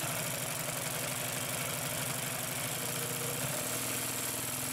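Consew P2339RB double-needle walking-foot industrial sewing machine starting up abruptly and running at speed, stitching through two layers of vinyl with a fast, even mechanical chatter.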